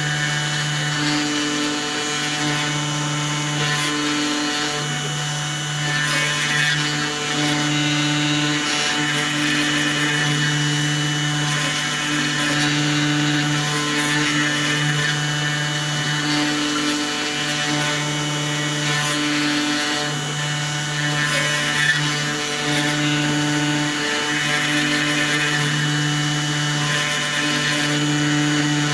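CNC 2535 desktop router milling plywood: the spindle motor hums steadily as the bit cuts, and the hum dips briefly every two to three seconds.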